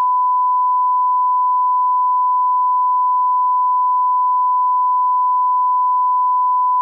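A steady 1 kHz sine test tone, the reference beep that goes with television colour bars, at one unchanging pitch and level.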